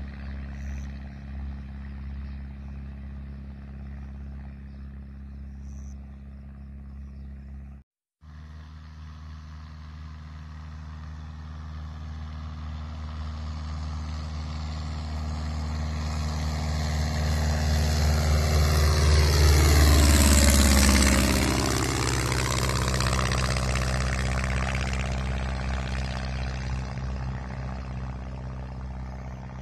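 Pietenpol Air Camper light plane making a low flyby: its engine and propeller drone grows steadily louder, peaks about two-thirds of the way through as the plane passes, then fades away. The sound cuts out for a split second about a quarter of the way in.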